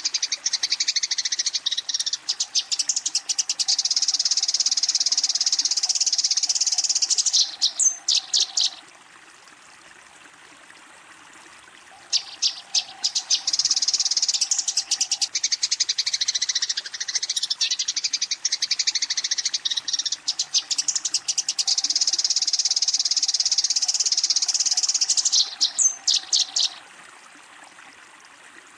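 Eurasian tree sparrow giving its rapid, chattering fighting call, the aggressive call used to challenge a rival. It comes in two long runs of dense chirping, each ending in a few separate chirps, with a pause of about three seconds between them.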